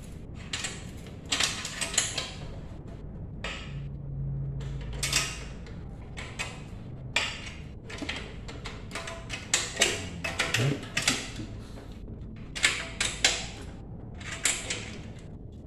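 Metal parts of a 10-inch bandsaw's table-tilt mechanism being handled and adjusted by hand: irregular clicks, scrapes and rattles from the curved tilt bracket and its locking lever, with a short squeak about ten seconds in.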